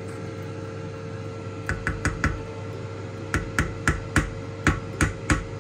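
A cooking utensil knocking against a pot, a dozen or so sharp knocks at an uneven pace starting a couple of seconds in, over a steady hum.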